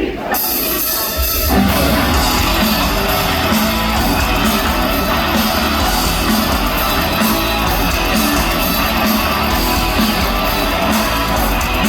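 Live heavy metal band playing a song's opening, with electric guitars and drums. The full band comes in loud about a second in and carries on with a steady driving beat.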